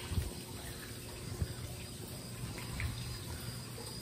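Steady low background hum with a few faint knocks and bumps.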